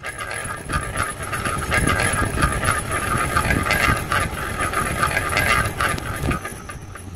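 Train running on rails: a steady low rumble with dense, rapid clattering and clicking of wheels over the track.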